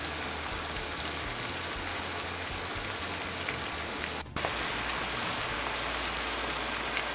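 Strips of eggplant, carrot, bell pepper and onion sizzling steadily in vegetable oil in a large heavy-bottomed frying pan, with a brief break about four seconds in.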